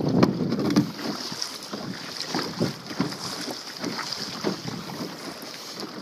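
Kayak paddle strokes in the sea, an uneven run of splashes and drips with water slapping the plastic hull, loudest in the first second. A steady high hiss and wind on the microphone lie under it.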